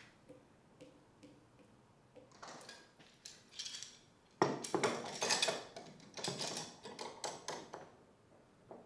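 Metal bar clamp clattering and clicking as it is set and tightened on walnut boards during a glue-up. It starts as a few light clicks and becomes a busy metallic clatter about halfway through.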